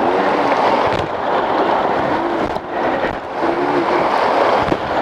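Mountain stream rushing steadily, with a trail motorcycle's engine revving up and down faintly over the water.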